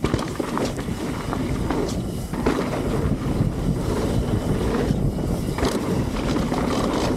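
Mountain bike descending a dirt trail: wind rushing over the camera microphone, tyre rumble and a run of short knocks and rattles from the bike over rough ground.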